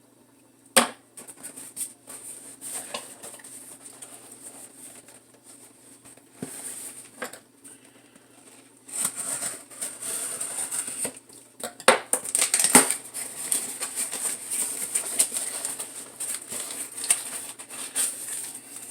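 A cardboard parcel being cut open with a box opener and unpacked: sharp clicks and knocks of handling, then long stretches of rustling from about halfway through.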